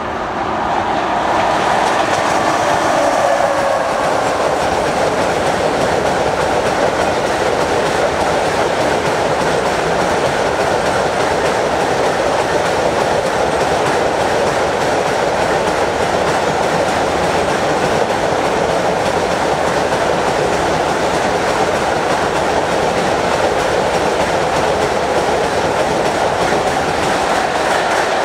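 Class 163 electric locomotive and a long train of car-carrier wagons passing at speed. In the first few seconds, as the locomotive goes by, a tone falls in pitch. After that the wheels on the rails make a steady clickety-clack as the wagons stream past.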